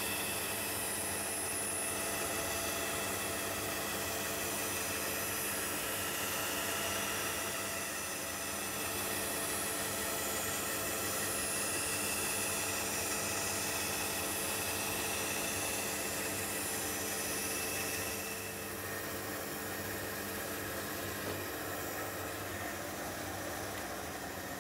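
Bandsaw running steadily while a sheet of plywood is turned on a pivot jig so the blade cuts out a circle, a continuous hum with a hiss over it. The sound eases slightly about three-quarters of the way through.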